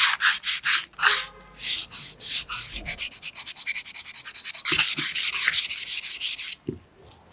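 Wood being hand-sanded with sandpaper in quick back-and-forth strokes. The strokes speed up to several a second after the middle, then stop about a second before the end.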